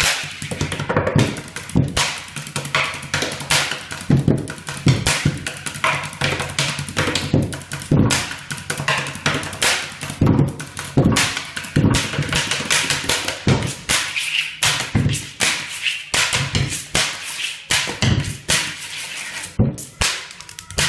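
Pen drumming: ordinary pens tapped and clicked in a fast, dense rhythm, played as a drum-like beat.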